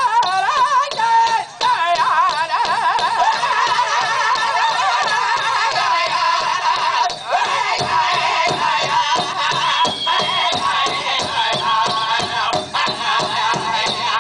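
Powwow drum group performing a chicken dance song: several voices singing with wavering pitch over a large hand drum. Steady, even drumbeats come through strongly from about halfway in.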